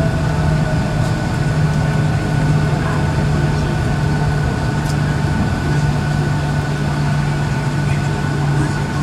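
Boeing 757 airliner heard from inside the passenger cabin during the landing roll: a steady roar of jet engines and rushing air, with a strong low hum and a thin higher whine, easing slightly as the jet slows on the runway.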